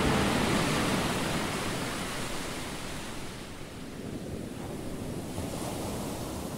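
Steady, even rushing noise like surf, with no tune or voice. It eases down in level over the first three seconds and then holds lower.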